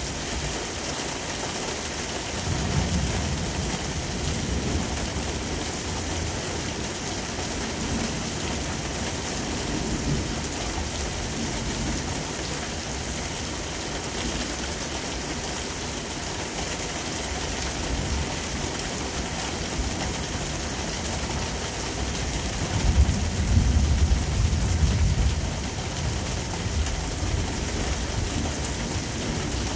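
Steady heavy rain falling, with low rolls of thunder swelling and fading several times; the loudest roll comes about three-quarters of the way through.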